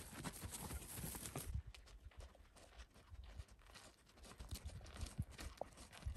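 Footsteps of a person and large Akbash/Great Pyrenees dogs walking on a dirt track: irregular light crunching steps, with the dogs panting.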